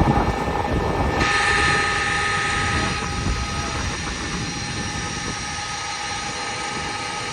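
Thunder rumbling, loudest in the first second or so and slowly fading, over a steady hiss of storm wind and rain.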